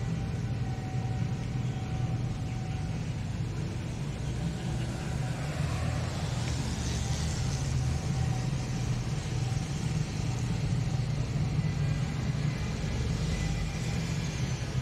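Street traffic: a steady low engine rumble, with a car passing about six seconds in, its noise swelling and fading away.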